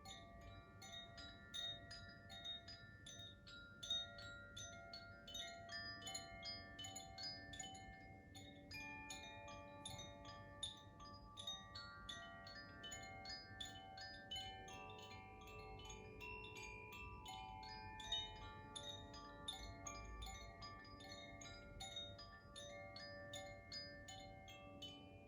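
Makino-style koshi chime played softly: its inner clapper tapping the tuned rods in a quick, dense patter of bell-like notes over sustained ringing tones, the chord shifting several times.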